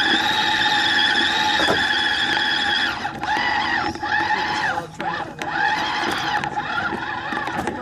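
RC rock crawler's electric motor and geartrain whining as it drives: steady for about three seconds, then rising and falling in pitch several times as its speed changes.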